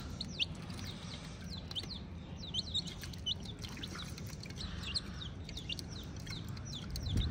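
A group of domestic chicken chicks peeping, many short high peeps scattered and overlapping, over a low steady rumble.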